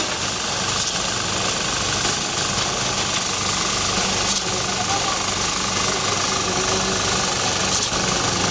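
A large engine running steadily, with a dense, even rattle over a constant low hum.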